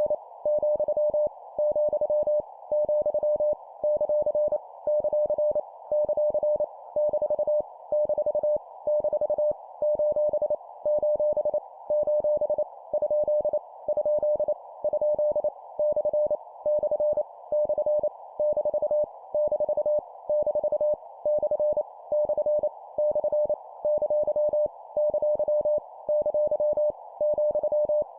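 Morse code (CW) sidetone, a single steady beep near 600 Hz keyed rapidly on and off at 25 words per minute, sending practice characters in groups separated by short breaks about once a second, with a faint hiss behind the tone.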